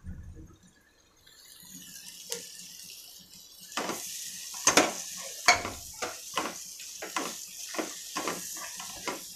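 Spatula stirring scrambled egg into frying onion masala in a pan: a steady sizzle that builds from about a second in, then spatula knocks and scrapes on the pan about twice a second from about four seconds in.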